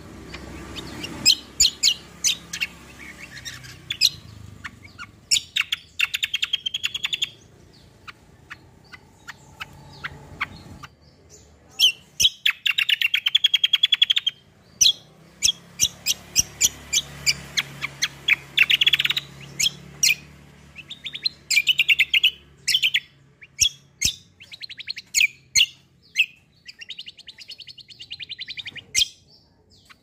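Caged kecial kombo songbird singing in repeated bursts: strings of sharp, very fast notes that run together into rolling trills a second or two long.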